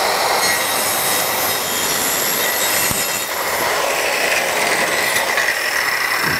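Handheld circular saw cutting through a wooden board along a clamped straight edge, trimming it to length; a steady high motor whine runs over the cutting noise throughout.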